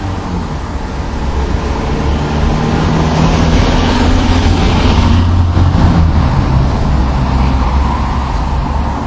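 A road vehicle passing by: a rumble with a rushing noise that grows louder, peaks about five seconds in, then fades.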